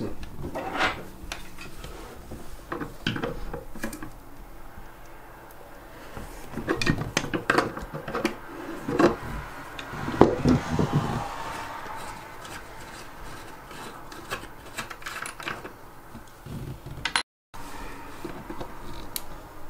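Scraping and rubbing of faucet parts with scattered clicks, irregular and stop-start, as the faucet's cartridge is worked loose and pulled out of the faucet body.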